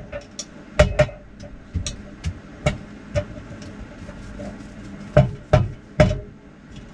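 Sharp plastic clicks and knocks from a round ceiling light cover in a motorhome being handled and worked loose from its fitting. The taps come irregularly, with three louder knocks in quick succession near the end.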